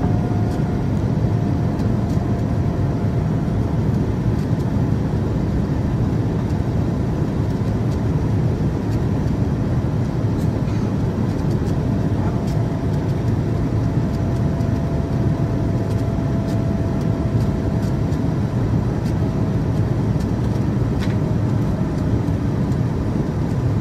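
Steady jet engine and airflow noise in the cabin of a Boeing 787-9 climbing after takeoff, heard from a window seat beside the engine. It is a deep even rumble with hiss, and a faint whine comes and goes.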